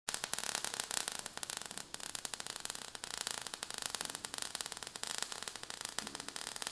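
A steady, dense crackle, a sound effect of burning, sputtering sparks.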